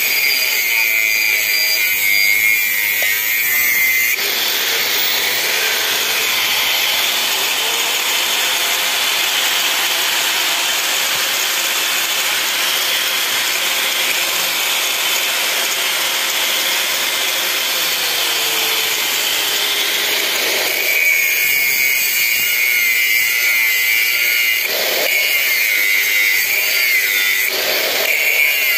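Angle grinder running under load as its disc cuts into the finned metal casing of an electric motor: a steady high whine with a rasping edge that shifts as the disc bites, growing harsher about two-thirds of the way through.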